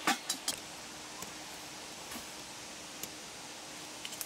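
A few sharp knocks in the first half second as a lidded wok is set down on a ring of rocks, then quiet scuffling. Near the end a rock knocks as it is lifted and moved.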